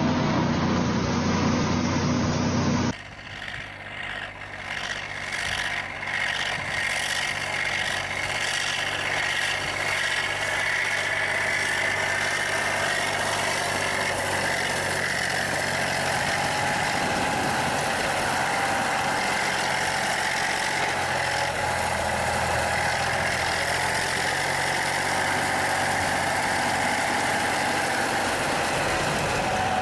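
Heavy vehicle engines running steadily. About three seconds in the sound cuts to a different engine that builds up with some ticking, then settles into a steady run with a faint whine.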